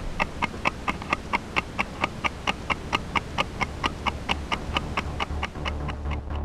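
Rapid, even ticking, about four ticks a second, over a steady low hum. The ticks fade out near the end.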